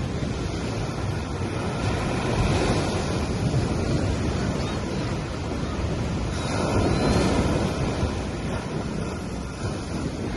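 Small sea waves breaking and washing up a sandy beach in a continuous hiss of surf, swelling twice: about two seconds in and again just past the middle.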